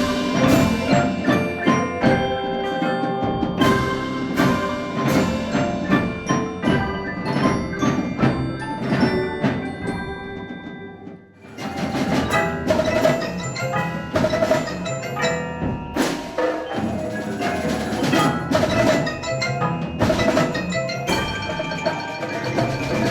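Music of struck percussion with ringing, bell-like mallet instruments and wood-block knocks. It dies away briefly about halfway through, then starts again.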